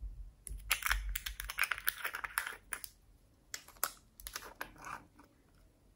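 Rapid clattering clicks of small hard plastic pieces: a plastic toy capsule being handled while sequins and beads rattle, in two spells of a couple of seconds each.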